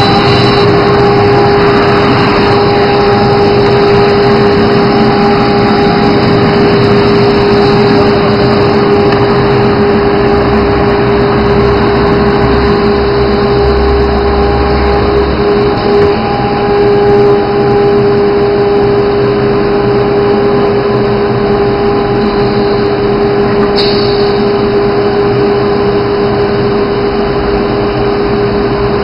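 Automatic tool-change CNC router running, its spindle giving a steady whine at one pitch over a constant mechanical whirr.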